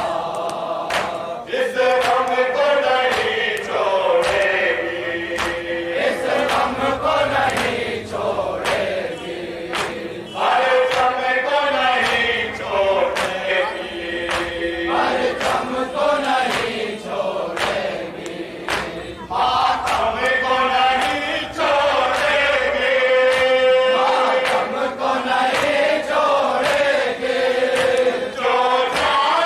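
A group of men chanting a noha (mourning lament) over a microphone, a lead voice with others joining in, while sharp, regular hand strikes of matam (chest-beating) keep time under the singing.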